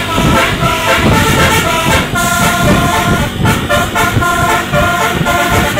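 A bus's Basuri telolet musical horn playing a tune of short stepped notes, over low rumble.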